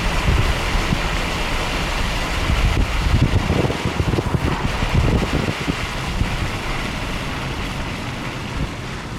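Car driving on a rain-soaked road: steady tyre and road noise with low rumbling, easing slightly in the second half.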